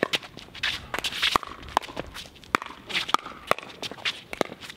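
Pickleball rally: paddles hitting a plastic pickleball, with sharp hits coming about one or two a second, mixed with shoe scuffs and footsteps on the hard court.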